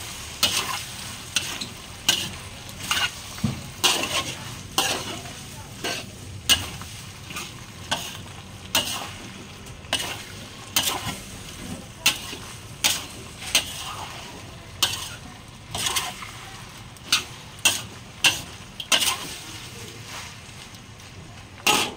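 Metal spatula scraping and knocking against a stainless steel wok in steady stir-frying, about one stroke a second, over a low, continuous sizzle.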